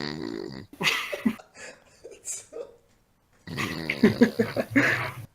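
A person snoring loudly: a long, low, rough snore, a short snorting burst about a second in, then another long, pulsing snore from about three and a half seconds in.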